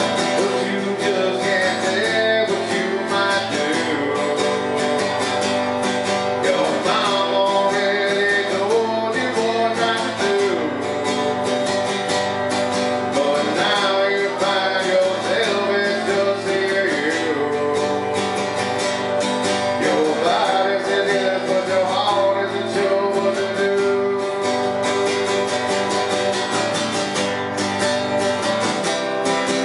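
Acoustic guitar strummed live, with a man singing over it in phrases that come and go every few seconds.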